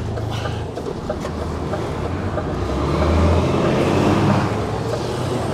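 HGV's diesel engine running at low revs while the truck is manoeuvred into position, the engine note swelling and rising about halfway through, then easing back.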